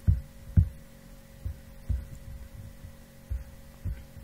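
About seven soft, low thumps at uneven intervals, roughly one every half second, over a steady low electrical hum.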